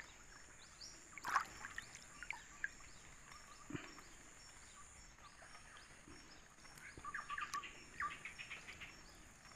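Faint water sloshing and small splashes as a gill net is handled and pulled along in a muddy flooded river, with a few sharper splashes about seven to eight seconds in. A steady high insect drone with regular faint chirps runs behind it.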